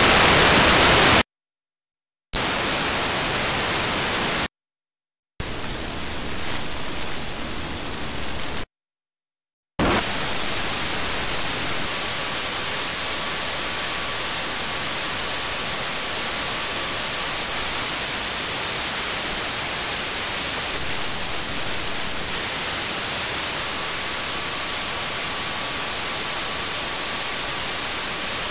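Receiver static from an HDSDR software-defined radio's audio output: plain hiss with no station audio coming through. About a second in the hiss cuts out, and it cuts out twice more over the next several seconds, each gap lasting about a second, as the output sampling rate is changed. After that it runs on steadily, with a faint steady tone that comes and goes within it.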